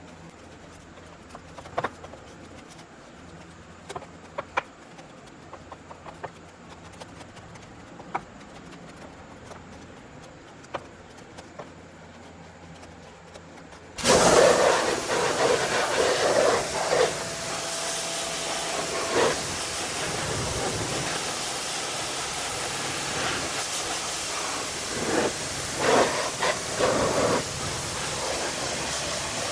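Scattered light clicks and taps over a low background, then a loud hissing jet switches on suddenly about halfway and runs on steadily, with louder spattering surges, during wheel and tyre cleaning.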